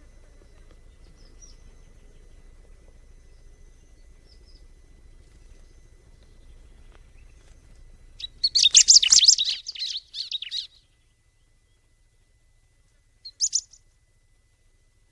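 A ciblek (a prinia) singing: faint high chirps at first, then a loud, fast run of chirps about eight seconds in that lasts a little over two seconds, and one short chirp near the end.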